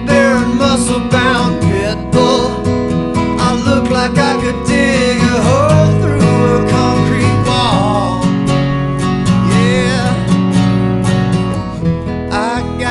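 A man singing a blues song over his own strummed acoustic guitar.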